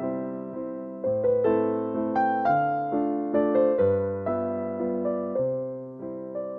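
Background music: piano notes struck one after another and fading, in a gentle melody.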